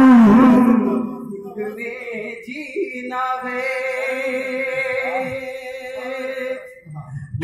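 A man singing an Urdu devotional song through a microphone and loudspeakers. A sung phrase fades about a second in, and a long held note follows from about three seconds until shortly before the end.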